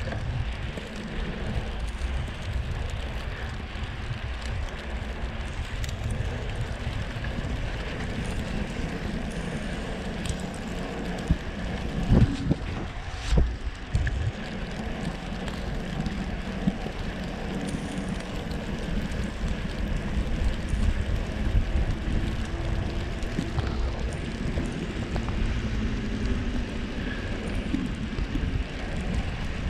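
Wind rushing over the microphone and tyre noise from a Surly Krampus bike with 3-inch tyres riding through snow. A couple of louder knocks come about twelve and thirteen seconds in.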